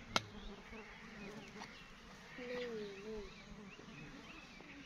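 A flying insect buzzing past for under a second, its pitch wavering and falling, over a quiet outdoor background. A single sharp click comes just after the start.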